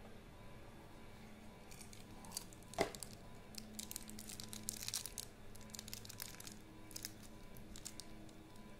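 A small clear plastic bag crinkling and crackling as fingers handle and open it, in a run of quick irregular crackles with one sharper crack about three seconds in.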